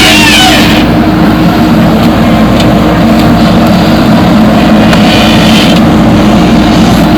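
Diesel engine of a backhoe loader or tractor running steadily. Brief high warbling sounds come in near the start and again around five to six seconds in.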